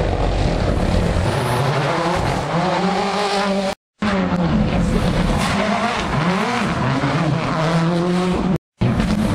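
Rally car engines revving hard at speed, the pitch climbing and dropping back repeatedly through gear changes, cut off twice by brief moments of silence.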